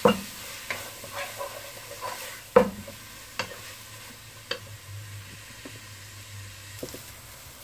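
A spatula stirring and scraping through onions and ginger–green chilli–coconut paste frying in oil in a nonstick pot, with a faint sizzle and a few sharp knocks of the spatula against the pot, the loudest about two and a half seconds in. The paste is being fried until its raw smell cooks off.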